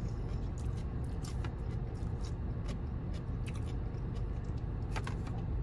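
A person chewing food with the mouth closed: soft, irregular crunches and wet mouth clicks every half second or so, over a steady low hum.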